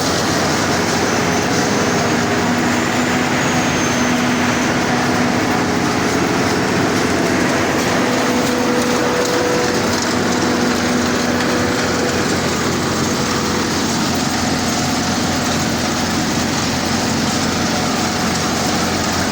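Combine harvester running steadily while harvesting corn: a loud, even mechanical din with a steady hum that fades in and out.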